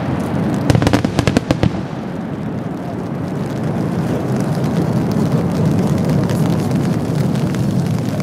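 Large Italian multi-break cylinder shell bursting at a distance. A rapid run of sharp cracks comes in the first two seconds, then a long low rumble that swells slightly and slowly dies away.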